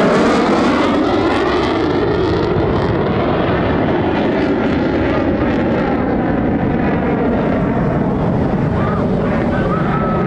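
Loud, steady jet noise from an F-35C Lightning II's single Pratt & Whitney F135 afterburning turbofan as the fighter flies and turns overhead, loudest near the start and easing slightly, with a slow sweeping, phasing quality in the hiss.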